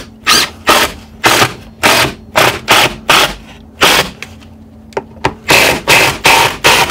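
Power drill driving screws into a wooden crate, run in a string of short, irregular trigger bursts.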